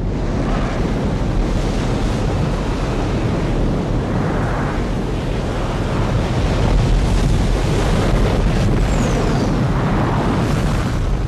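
Cinematic sound effect of a meteor impact explosion: a continuous, dense rumble heavy in the low end, growing slightly louder in the second half.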